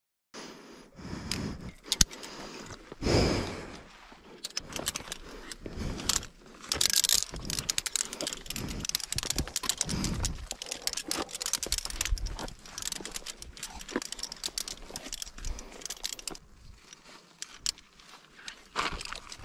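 Steel chain and via ferrata carabiners clinking and rattling in quick, uneven clicks as a climber pulls up a fixed chain on rock, with a few low bumps.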